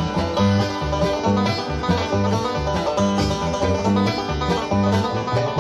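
Background music in a country style, with plucked strings over a steady bass beat.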